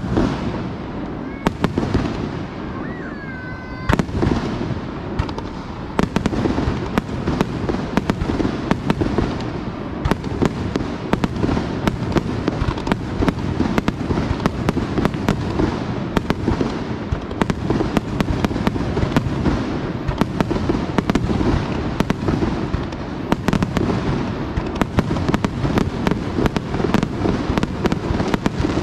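Aerial fireworks shells bursting in a rapid, continuous barrage of booms and crackles, with a short whistle about three seconds in.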